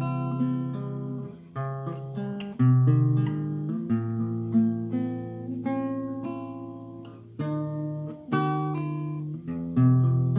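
Acoustic guitar playing slowly, a mix of plucked single notes and strummed chords left to ring out and fade, with fresh chords struck every second or two.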